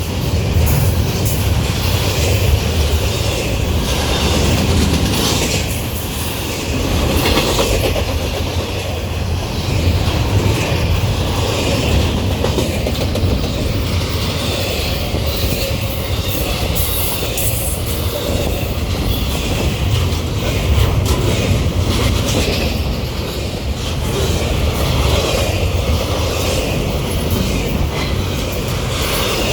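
Norfolk Southern intermodal freight train rolling past at speed: a steady, loud rumble of cars with wheels clicking over rail joints.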